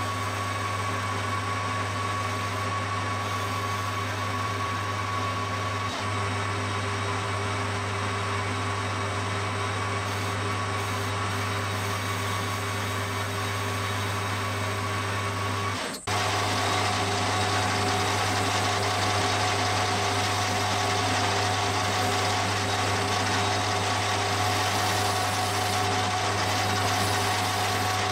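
Metal lathe running steadily with a large faceplate and fixture spinning: a constant low hum with a thin whine over it. About halfway through it dips for an instant, then runs a little louder with the whine at a lower pitch.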